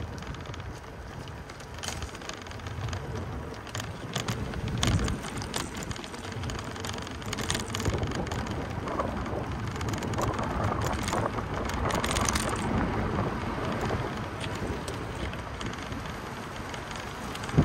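Outdoor walking ambience with wind rumbling on the microphone, and a passing vehicle that swells and fades around the middle.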